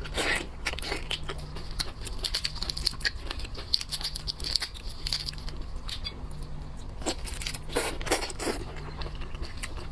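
Boiled shellfish shells being cracked and peeled by hand: a run of small crackles, snaps and tearing sounds, busiest in the first half, with a flurry of louder cracks near the end.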